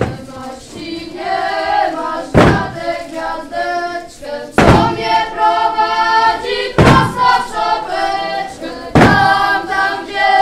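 A group of children singing together in unison, with a heavy thump on the wooden stage floor about every two seconds.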